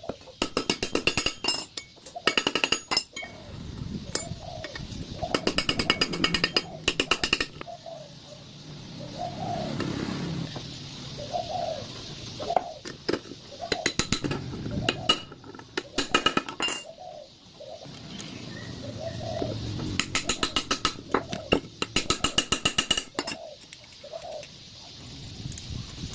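Repeated bursts of rapid metallic clinking and rattling, each lasting up to about a second and a half, with softer lower sounds in between.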